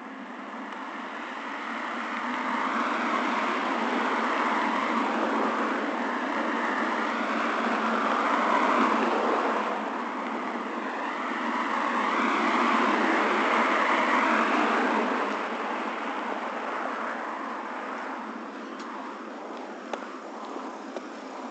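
Cars passing along the street, their noise swelling, dipping about ten seconds in, swelling again and then fading.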